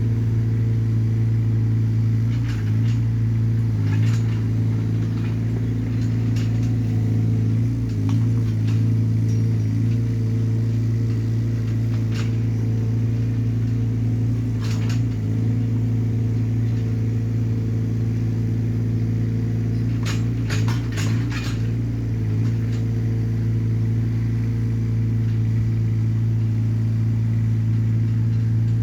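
Small Hyundai excavator's diesel engine running at a steady speed, with short sharp knocks or clanks now and then and a quick cluster of them about twenty seconds in.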